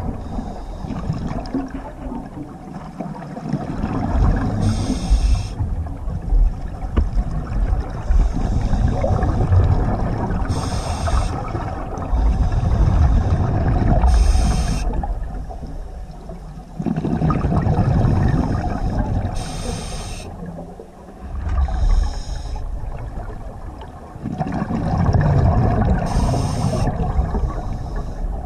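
Underwater sound picked up by a submerged camera: a low, uneven rumble and wash of moving water, with a short hiss every few seconds in the rhythm of a scuba diver's regulator breaths.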